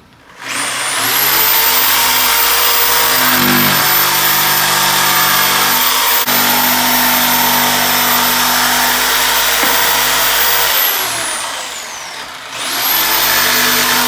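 Corded DeWalt jigsaw sawing through a wooden shiplap board to cut out an outlet opening, the motor running steadily under load. About eleven seconds in the motor winds down, then it starts again near the end for a short second cut.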